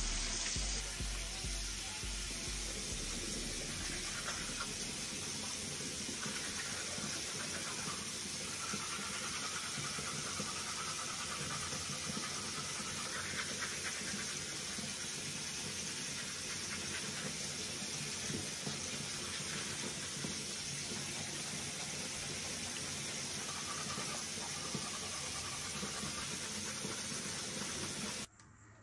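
Water running steadily from a bathroom tap, a continuous hiss that stops suddenly near the end.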